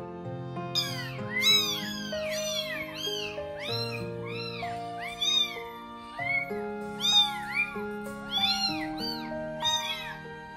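Several baby kittens mewing over and over, with short high cries that rise and fall and often overlap, starting about a second in. Background music with held notes plays underneath.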